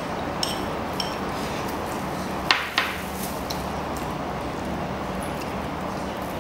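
Training chopsticks tapping and clicking against a bowl as a toddler picks at food: a few light, sharp taps, with two louder clicks close together about two and a half seconds in.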